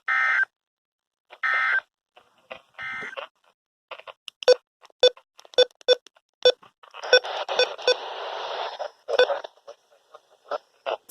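NOAA Weather Radio SAME end-of-message code: three short, identical bursts of two-tone digital data, about a second and a half apart, marking the end of the test broadcast. These are followed by a run of sharp clicks and about two seconds of hiss.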